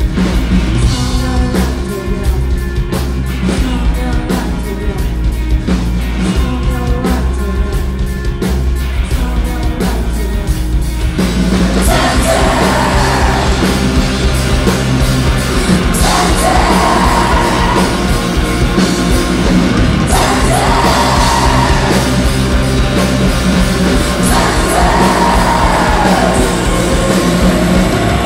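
Live rock music: electric guitar with a band and a voice singing, with a quick steady beat. About eleven seconds in the music gets louder and fuller, with long sweeping notes that return every few seconds.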